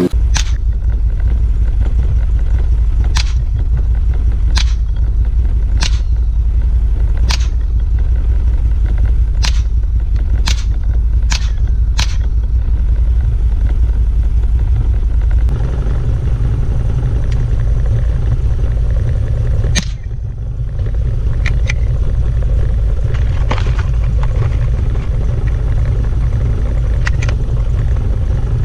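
.22 LR rifle firing single shots at a target: nine sharp cracks spaced a second or two apart in the first twelve seconds, then about four more spread out later. A steady low rumble sits under them throughout.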